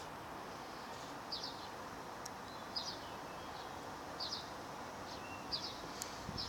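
A small bird chirping, short quick runs of high chirps repeating about every one and a half seconds over a steady background hiss.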